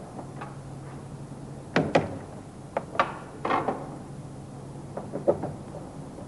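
Sharp clicks and knocks of hard plastic and metal as a manual window crank handle on a car door trim panel is handled and worked off with a screwdriver. There is a loud pair of clicks about two seconds in, several more a second later, and a few lighter ones near the end.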